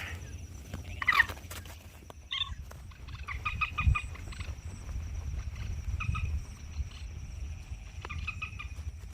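Common moorhen calls, short clucking phrases of the same pattern repeated every couple of seconds, played as a lure for catching rice-field birds.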